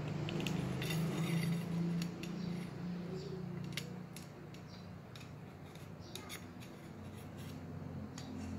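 Thin tape-wrapped metal tube being slid into a slightly wider metal barrel tube, making scattered light metallic clicks and scrapes as it goes in.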